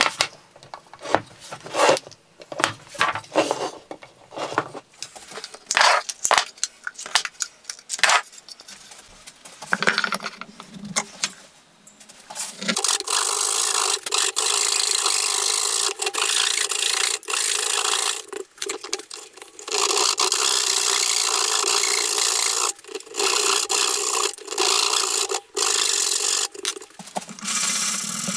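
Fine-toothed flush-cut saw cutting off protruding oak splines at a wooden box's mitred corners, wood rasping under the teeth. The strokes come one by one at first, then from about halfway run together into a near-continuous rasp with brief pauses.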